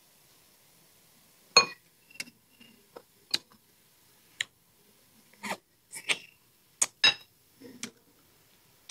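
Wooden chopsticks clinking and scraping against a small glass bowl of rice, with close-miked chewing of crispy fried pork between: about a dozen irregular clicks and clinks, some ringing briefly.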